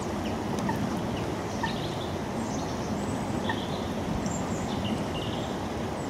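Small songbirds calling with short, high chips and a few brief twittering phrases, over a steady low background rumble.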